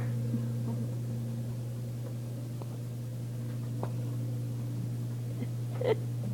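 A steady low hum with a light hiss, like a room's fan or ventilation unit running. There are a few faint ticks, and a short voice-like sound near the end.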